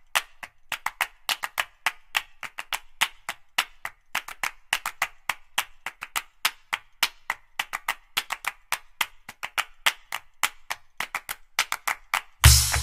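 Background music made of sharp percussive clicks, several a second with gaps of silence between them. Just before the end, a louder music track with a deep bass line comes in.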